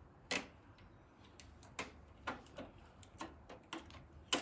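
Irregular light clicks and taps of fingers on a Canon PIXMA TS3160 inkjet printer's plastic body as its orange protective tape and packing pieces are pulled off, with the sharpest clicks just after the start and near the end.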